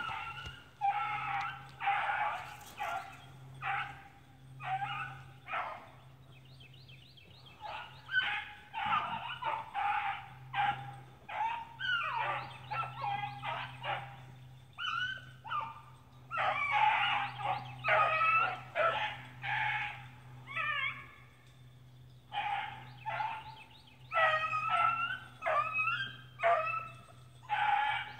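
Beagles baying on a rabbit's trail: a steady run of drawn-out, pitched cries from several hounds at different pitches, overlapping, with short pauses between bursts.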